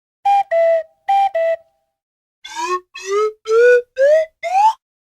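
Cartoon whistle sound effect: a two-note falling whistle (high, then lower) sounded twice, then, after a short gap, five short upward-sliding whistle notes, each pitched higher than the last.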